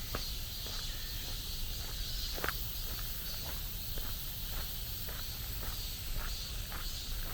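Footsteps walking at an even pace along a forest path, about two steps a second. Behind them is a steady high-pitched hiss and a low rumble.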